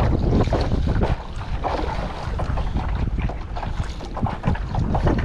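Strong wind buffeting the microphone on a kayak in choppy water: a heavy low rumble broken by irregular gusty crackles.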